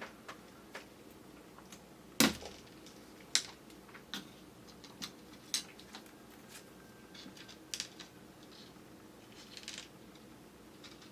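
Eating sounds of chewy kyoho grape jelly: scattered wet mouth clicks and smacks while chewing, the loudest about two seconds in and a small cluster near the end. Picked up by a camera's built-in microphone.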